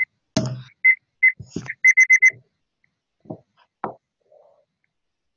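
A homemade computer alarm-clock program sounding its alarm through a small speaker: short, high beeps, a few spaced apart and then four in quick succession, stopping about two and a half seconds in. There are a few dull knocks in among and after them.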